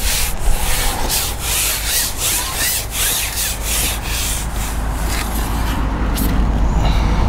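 Carbon fishing pole being shipped back hand over hand while playing a hooked fish, its sections sliding and rubbing in repeated scraping strokes over a low rumble.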